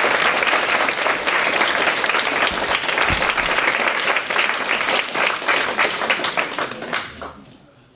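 Audience applauding, the clapping fading out over the last second or two.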